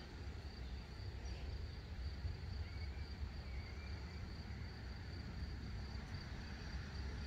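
Summer meadow ambience: a steady high-pitched drone of insects such as crickets, over a constant low rumble.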